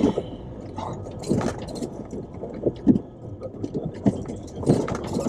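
Jeep Wrangler JL crawling slowly over stones, with irregular knocks and scrapes over a low engine rumble.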